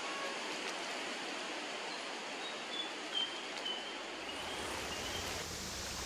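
Steady rushing outdoor noise, with a faint run of short, high bird whistles in the middle. A low drone fades in near the end.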